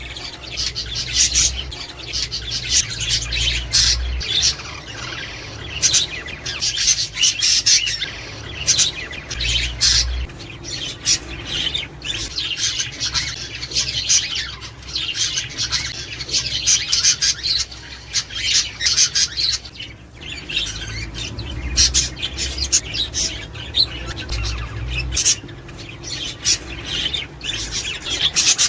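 A flock of budgerigars chattering and chirping without pause, many short calls overlapping.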